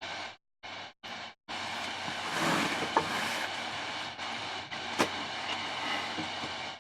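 Close mouth noises of someone eating a Gator Jigsaw superhot pepper, chewing and breathing. In the first second and a half the sound comes in short bursts that cut off abruptly, then it runs on continuously, with a sharp click about three seconds in and another about five seconds in.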